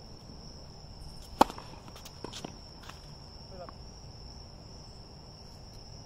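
A tennis ball struck hard by a racket about a second and a half in, followed by a few fainter ball knocks, over the steady high chirring of crickets.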